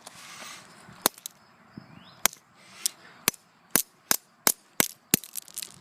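A plastic fidget spinner being broken apart: a series of about nine sharp cracks and snaps that come faster and faster.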